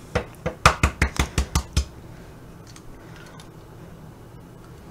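A quick run of about eight sharp taps over a second and a half, then quiet: an egg being knocked against a drinking glass to crack its shell.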